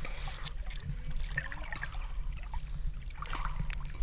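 Sea water lapping and splashing against a floating buoy and a swimmer's body, with scattered small splashes over a steady low rumble of water against the microphone.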